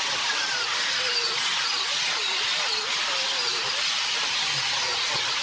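Power-tool wire wheel scrubbing rust and crud off steel bucket shanks and teeth: a steady harsh hiss, with the motor's whine wavering in pitch as the wheel is pressed against the metal.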